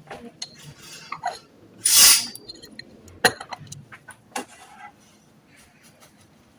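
Clinks and taps of cutlery and dishes, with a short loud noisy burst about two seconds in, dying away to quiet in the last second or so.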